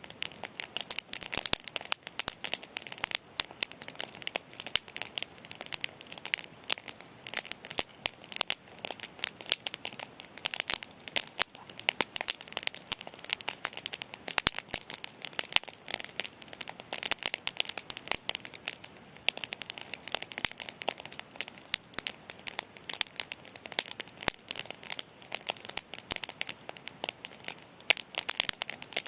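Cedar-wood campfire crackling: a dense, irregular stream of sharp, high-pitched pops and snaps.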